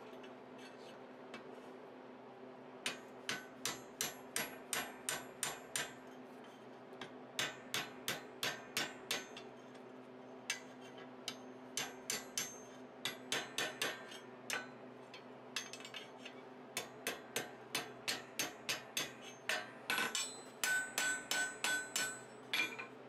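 Forging hammer striking a hot steel bar loop against the horn of a small stake anvil, in runs of sharp blows about three a second with short pauses between them. Near the end several blows ring with a clear tone. A steady low hum runs underneath.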